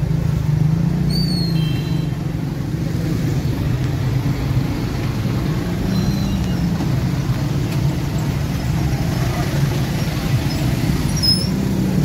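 Slow-moving road traffic: engines of cars, motorcycles and auto-rickshaws running steadily at a crawl, with a few brief high chirps.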